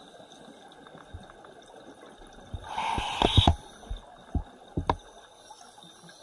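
Scuba diver's regulator exhaling underwater: a burst of bubbles gurgling out a little before halfway, followed by a few separate bubble pops trailing off.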